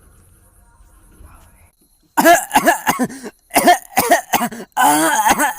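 A person coughing hard in a run of rough, throaty coughs, starting about two seconds in: the sick cough of a patient said to have corona.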